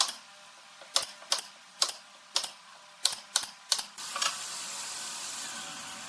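Pneumatic brad nailer firing nails into a wooden frame: about eight sharp snaps at uneven intervals over four seconds. Then a steady hiss takes over.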